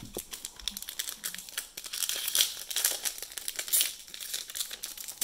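A foil-wrapped Donruss football card pack being crinkled and torn open by hand: a run of sharp crackles, thickest in the middle.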